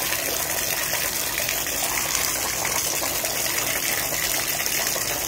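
Water running steadily from a bathtub spout into the tub.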